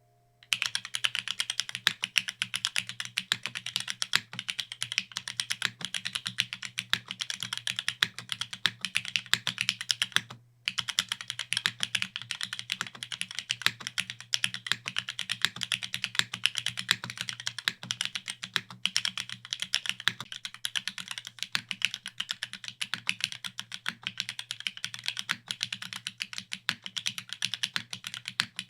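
Fast, continuous typing on a Geonworks Glare TKL top-mount custom mechanical keyboard, a dense stream of key clacks with a brief pause about ten seconds in. A faint steady low hum runs underneath.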